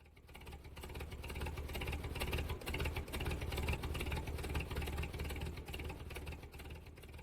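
A small motor running steadily with a low hum, building up over the first second or so and dying down near the end.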